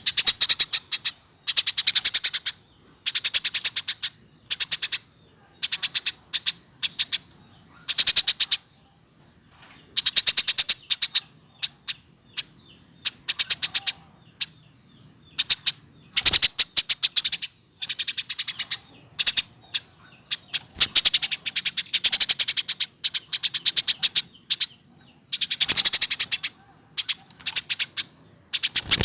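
Eurasian tree sparrow chirping in quick runs of rapidly repeated high, sharp notes, each run lasting from a fraction of a second to about a second and a half, with short pauses between them.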